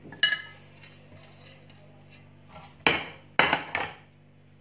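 A metal spoon clinks against a ceramic plate with a brief ring, then clatters and scrapes against the dishes a few times about three seconds in while marinade is scooped onto chicken.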